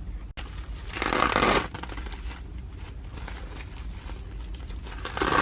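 Rustling and crinkling as a sanitary pad and its plastic wrapping are handled, with two louder rustles, about a second in and near the end.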